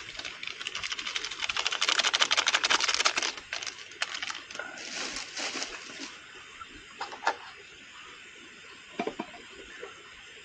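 Small plastic sachet of ume-shiso furikake being shaken and rustled over a mess tin of rice, giving a fast crackly patter for about three seconds. Softer plastic rustling follows around five seconds in, then a sharp click and a couple of light knocks.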